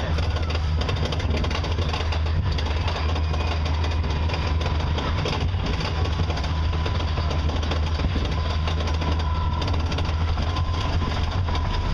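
Roller coaster train being hauled up the chain lift hill: a steady low mechanical drone with a thin constant whine and rapid clicking from the track.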